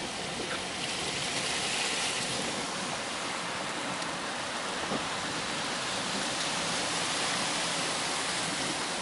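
Heavy hurricane rain and rushing floodwater, a steady hiss without a break.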